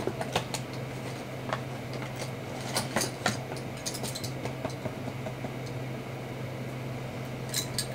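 Light scattered clicks and taps from a plastic measuring spoon scooping and patting flour from a paper bag, over a steady low hum.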